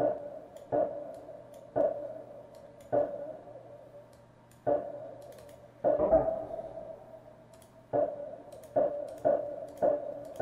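A short pitched percussive test note played from a DAW about ten times at uneven intervals, each hit ringing out and fading over about a second through a small-room convolution reverb.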